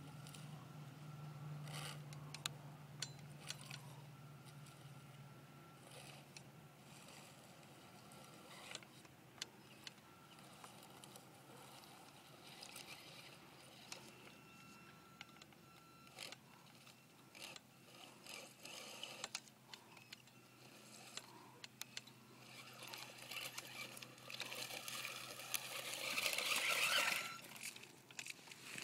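Associated RC18MT 1/18-scale electric monster truck driving through rocks and mud, its motor giving a faint whine in short bursts amid clicks and scrapes of stones under the tyres. The scraping and crunching grows louder near the end.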